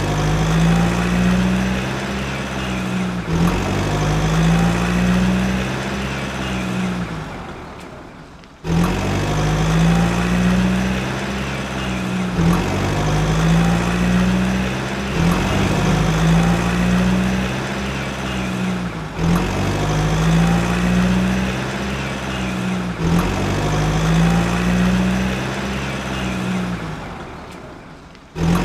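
Looping background music with a repeating low bass line that steps between a few notes, fading out and starting over twice.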